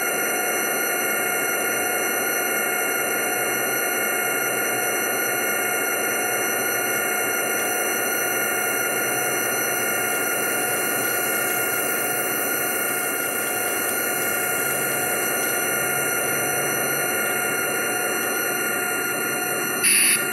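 Model diesel passenger train running on the layout: a steady mechanical hum with a low rumble underneath, and a brief sharp click near the end.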